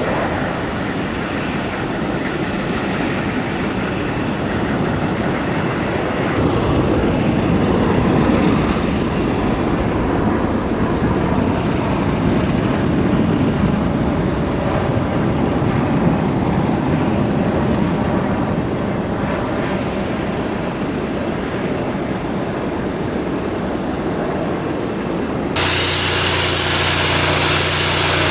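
Pickup truck engine running on an airport runway, mixed with a steady rushing noise. Near the end it changes abruptly to a steadier low engine hum with a droning tone.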